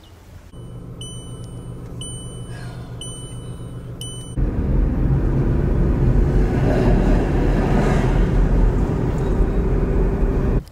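A run of short high electronic beeps, about one a second, then, from about four seconds in, a tram passing close by: a loud rumble of its wheels on the rails with a steady motor hum.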